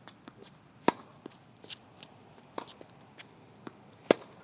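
Tennis rally: the sharp pops of a racket striking the ball, the two loudest about a second in and near the end, with fainter knocks of the ball bouncing and hits from the far side of the court between.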